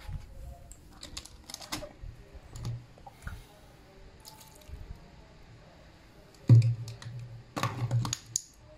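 A plastic water bottle tipped over a potted plant to water it: irregular clicks and crackles of the handled plastic with small splashes. About two-thirds of the way through comes a sudden loud knock, followed by a low hum lasting under two seconds.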